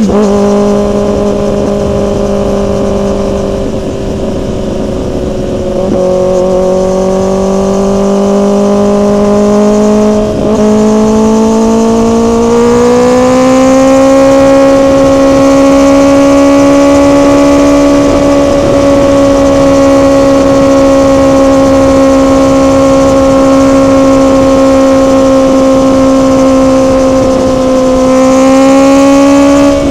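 Motorcycle engine running hard at steady, high revs. There is a brief dip about ten seconds in, then the pitch climbs and holds higher, rising again near the end.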